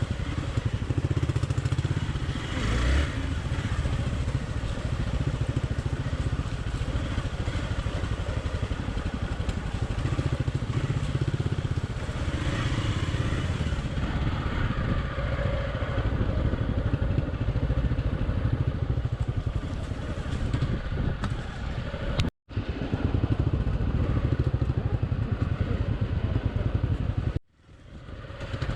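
Hero Xpulse 200's single-cylinder engine running steadily as the bike is ridden, the sound cutting out abruptly twice near the end.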